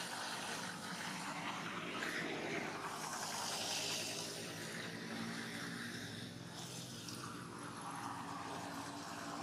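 Background road traffic: a steady engine hum and hiss that swells slightly about three to four seconds in.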